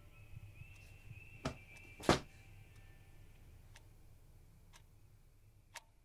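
Faint sparse ticks, roughly one a second, over a low hum and a faint steady high tone, with one louder knock about two seconds in.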